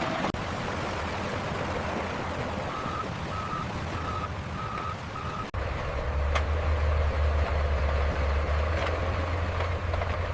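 Heavy construction machinery running, with a reversing alarm beeping five times in the first half. About halfway through the sound cuts abruptly to a loud, low, steady engine sound of a heavy machine.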